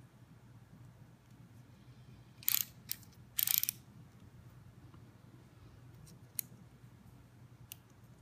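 Handling noise from a metal tactical flashlight stun gun: three short scraping rubs close together about two and a half to three and a half seconds in, then a few faint light clicks near the end.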